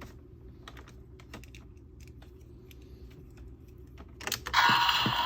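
Light plastic clicks and taps from a toy transformation belt and buckle being handled. About four seconds in, a loud electronic sound effect with a steady tone starts from the toy's small speaker.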